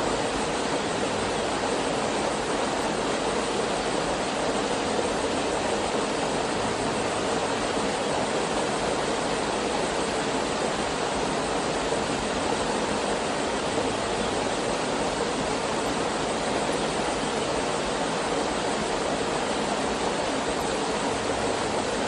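Small hot-spring waterfall splashing steadily into a rock pool, a constant rush of falling water.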